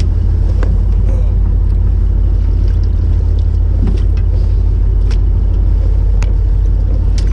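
Fishing boat's engine running steadily with a loud, even low rumble, heard from on deck. A few light clicks sound over it.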